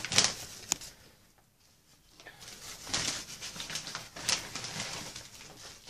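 Rustling and scraping of a green plastic scoop working loose, damp potting soil in a plastic bucket, with a few sharp clicks of the scoop against the bucket. It stops briefly about a second in and starts again about two seconds in.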